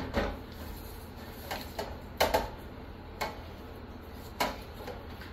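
Light, irregular clicks and taps of a metal sheet pan being handled and greased on a gas stove's grates.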